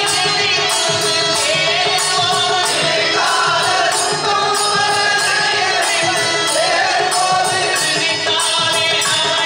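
A Tamil devotional bhajan sung by a lead male singer with a chorus of men, accompanied by harmonium and percussion keeping a steady beat.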